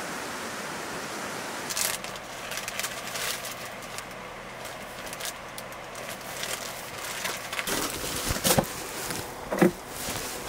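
A plastic zip-top bag crinkling and rustling as it is handled. Near the end come a few sharp knocks and clunks as the lid of a portable fridge is handled.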